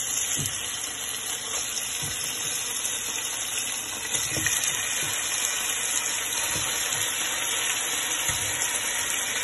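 Raw chicken pieces sizzling in hot oil as they are laid into the preheated pan one after another. The steady sizzle starts as the first piece goes in, with a few low thumps as further pieces are dropped.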